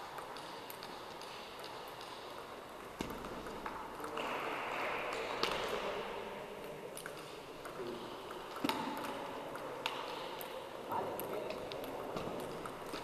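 Celluloid-type table tennis ball clicking off rubber paddles and the table top in a rally: a series of short, sharp ticks at uneven spacing. Under them runs the steady murmur of a busy sports hall.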